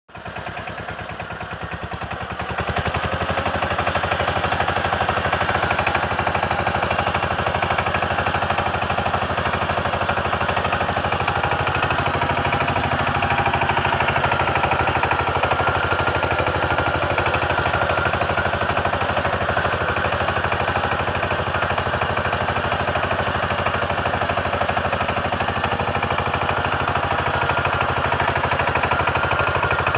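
Kamco power tiller's single-cylinder diesel engine running steadily with a rapid, even knocking beat as it pulls its rotary tiller through wet paddy mud. It gets louder about two and a half seconds in.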